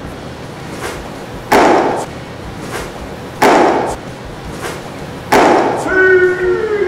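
Three loud, alike thuds about two seconds apart, followed near the end by a brief call of a voice.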